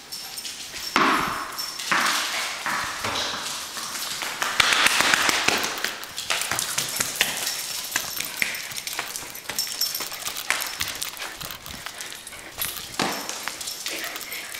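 Dogs running and scrambling on a hardwood floor: quick irregular clicking of claws, with bursts of scuffling.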